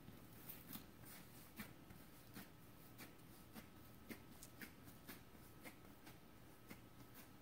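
Faint, irregular soft taps and rubbing of hands pressing and flattening whole wheat dough on a floured granite countertop, about one or two small taps a second.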